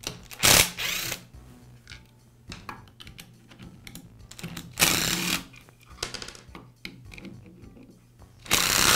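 Cordless power screwdriver running in three short bursts, backing out the screws that hold the belt cover on a Porter Cable belt sander.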